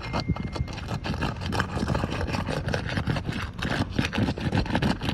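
Asphalt roof shingles being pried up with a roof snake: a dense, irregular run of scraping and crackling as the tool works under the sealed shingle tabs and breaks them loose.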